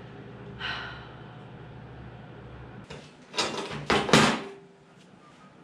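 A steady low hum, then a few loud knocks and scrapes about three and a half and four seconds in, the loudest a little past four seconds.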